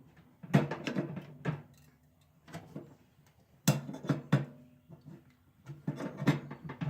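Irregular knocks and clanks of hand tools against a microwave's sheet-metal parts while a part is being pried off, coming in short clusters with quiet gaps between.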